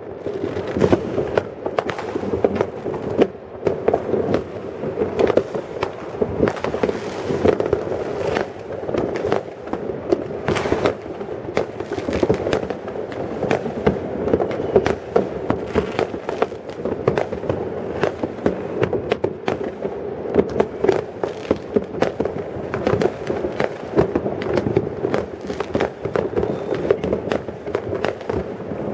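Fireworks and firecrackers going off all over a town at once: a dense, unbroken string of bangs and pops, many overlapping, with no pause.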